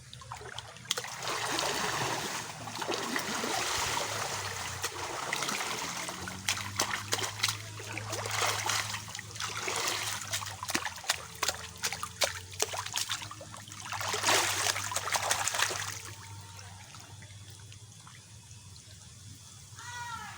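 Water splashing and trickling, with a run of sharp splashes in the middle and a louder rush of water about fourteen seconds in. After that it settles to a quieter trickle.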